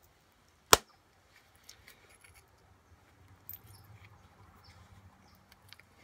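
Pressure flaking a stone point: one sharp click about a second in as a flake snaps off the edge under the pressure flaker. Faint small ticks and rustling follow as the piece is handled in its leather pad.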